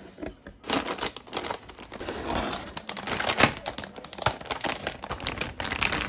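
A graphics card being unboxed: its clear plastic bag crinkles and rustles in quick, irregular handling noises as the card is lifted out of its cardboard box and unwrapped.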